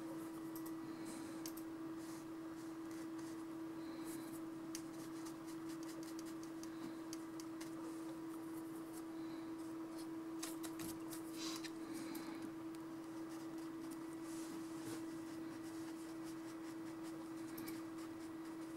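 Faint scratchy strokes and light clicks of a paintbrush dry-brushing textured watercolour paper and picking up paint in a tin palette, over a steady hum.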